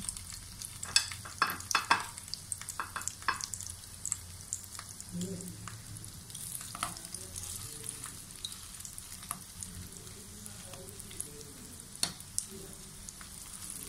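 Mashed sweet potato and egg patties shallow-frying in oil in a nonstick pan: a steady sizzle with sharp crackles and pops, thickest in the first few seconds and again about twelve seconds in.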